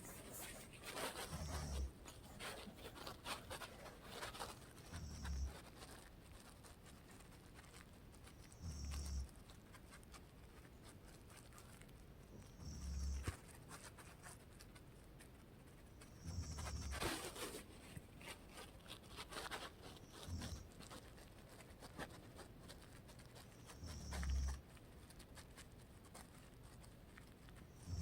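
A woman snoring in her sleep: a low snore about every four seconds, seven in a row, with faint clicks and rustling in between.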